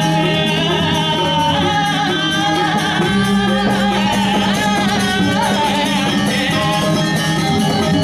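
Balinese gamelan playing music for the Telek masked dance: many layered ringing tones over a held low note, with a wavering high melody line.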